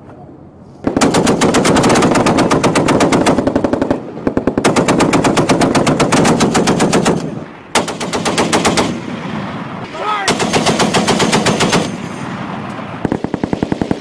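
M2 Browning .50 caliber heavy machine gun firing belt-fed in long bursts, about five of them separated by short pauses.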